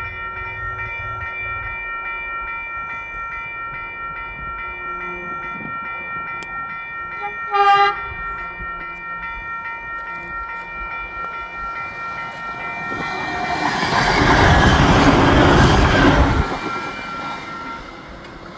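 A train sounds one short horn blast about eight seconds in, then passes close by with a rising rumble of wheels on rail, loudest about fourteen to sixteen seconds in and fading near the end. Level crossing warning bells ring steadily underneath.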